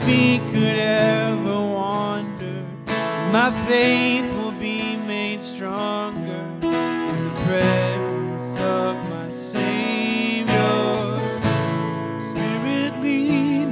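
Two acoustic guitars strumming a worship song.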